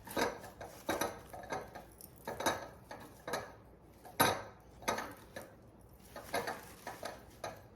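Light taps, clinks and rustles of artificial flower stems being handled and pushed into a small milk glass bud vase, with one louder knock about four seconds in.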